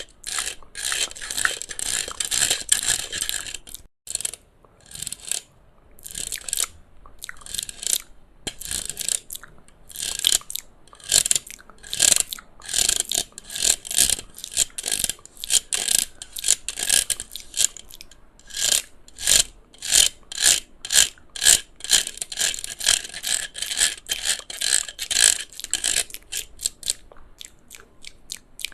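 Close-up scratching and rubbing on a handheld electric fan's casing, in short quick strokes about two to three a second, with a sparser pause about four seconds in.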